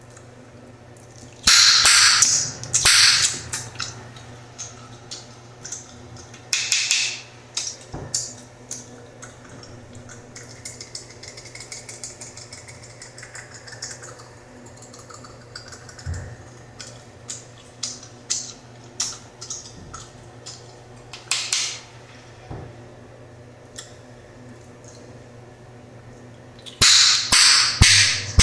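Bubblegum chewed close to the microphone with sharp snaps and pops: loud clusters of pops about a second and a half in, around seven seconds, just past twenty-one seconds and near the end, with smaller clicks and snaps between.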